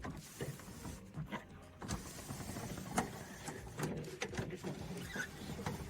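Suzuki Samurai door window being wound with its regulator: scattered light clicks and rubbing as the glass drags in the new window channel, which is grabbing it.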